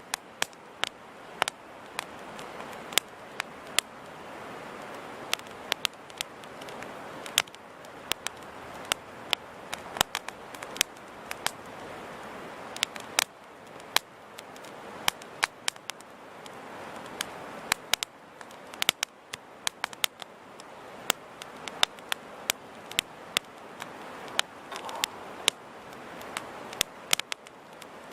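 Wood campfire burning: a steady soft hiss of flames with frequent sharp, irregular crackles and pops from the burning wood.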